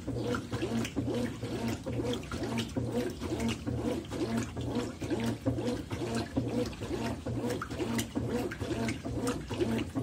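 Consul 13 kg top-load washing machine agitating a full tub of water and laundry on its gentlest agitation setting: the motor hums and the water sloshes in a steady back-and-forth rhythm as the agitator reverses.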